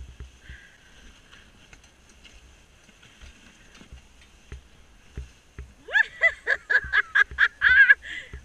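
Pony-drawn sled gliding over snow, faint apart from soft, irregular low thuds. About six seconds in, a loud run of rapid high-pitched vocal yelps begins, about five a second.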